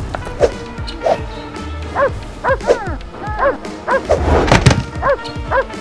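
A small dog barking in short, repeated barks over background music, a few at first and then about two a second from about two seconds in.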